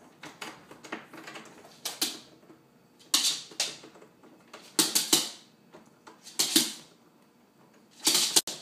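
Dog's claws clicking and paws slapping on a hardwood floor as it pounces and bats at a stick insect: irregular sharp taps, the loudest in clusters about three, five, six and a half and eight seconds in.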